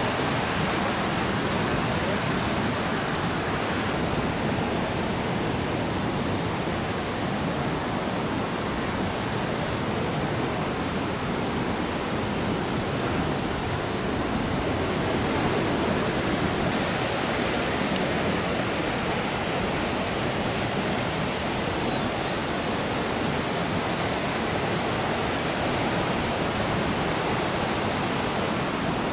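Ocean surf breaking onto a beach: a steady, even rush of white water with no separate wave crashes standing out.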